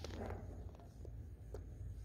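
Faint soft clicks and rustles of a young Labradoodle puppy stirring on a shaggy fleece dog bed, four small ones spread over two seconds, over a steady low room hum.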